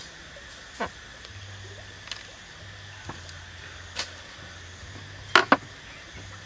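A few short, sharp knocks and taps as a plucked duck carcass is cut with a knife and handled on a wooden board, the loudest a quick double knock about five and a half seconds in, over a steady background hiss.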